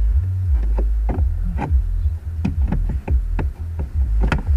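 Wind buffeting the microphone in uneven gusts of low rumble, with a run of short knocks about two to three a second.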